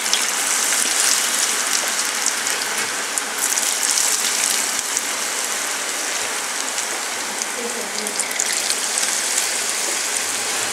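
Batter-coated cauliflower florets deep-frying in hot oil, sizzling steadily.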